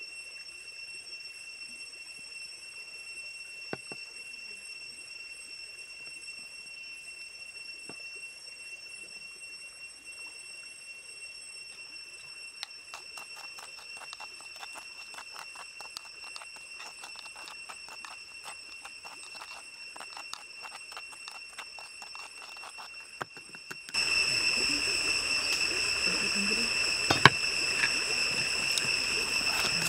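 Wooden chopsticks stirring and scraping a chili-lime dipping sauce in a coconut-shell bowl, a quick run of small clicks from about halfway, with one sharp tap near the end. A steady high-pitched whine sounds behind it and gets louder for the last few seconds.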